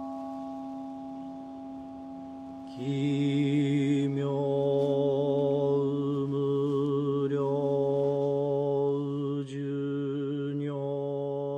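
The ringing of a struck Buddhist singing bowl hangs and fades. About three seconds in, a deep Buddhist chant begins, sung on long, low held notes with brief breaks for breath.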